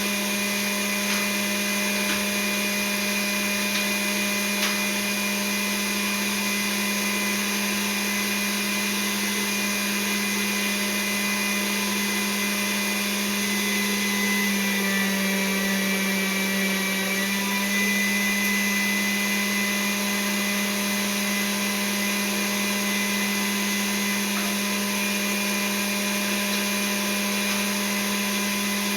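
Electric kitchen mixer motor running steadily as it mixes a ground venison filling. It is one even hum, and its pitch sags briefly about halfway through as the load drags on it.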